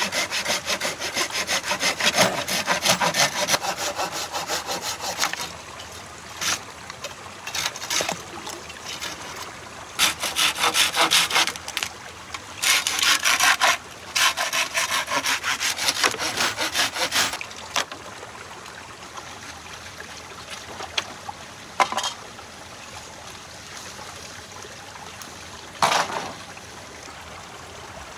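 Hand saw cutting wood in several runs of rapid back-and-forth strokes, with pauses between them, and two single sharp knocks in the second half.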